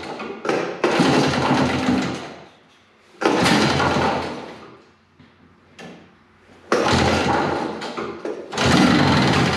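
The 1970 Evinrude Skeeter 440's opposed twin two-stroke engine being pull-started four times. Each pull gives a loud burst of over a second as the engine cranks and sputters on hand-injected fuel, then dies without staying running.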